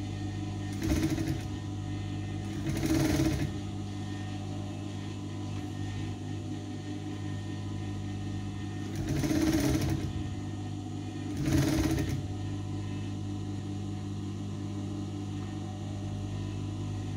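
Sewing machine stitching a dress seam in four short runs of about a second each, over a steady low hum.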